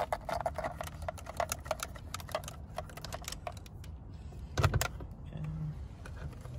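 Ratchet wrench clicking rapidly as the 17 mm steering-wheel nut is loosened, then a single loud knock about four and a half seconds in.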